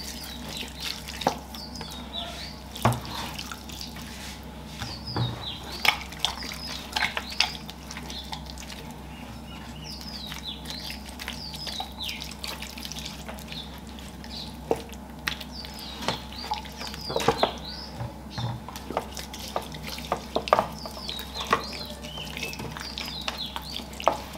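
Hands massaging marinade into raw whole chickens: irregular wet squelches, smacks and slaps of palms and fingers on slick chicken skin.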